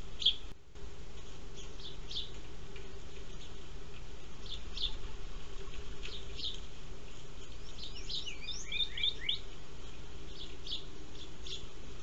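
House sparrows chirping at a feeder: short high chirps, often in pairs, every second or two, with a quicker run of notes about eight seconds in. A steady low hum runs underneath, and the sound drops out briefly about half a second in.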